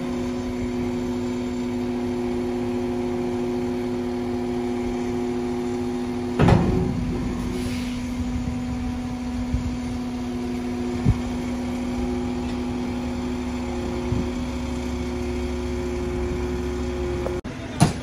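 Diesel engine idling steadily, with a loud clank about six and a half seconds in, a lighter knock around eleven seconds, and another sharp clank just before the end.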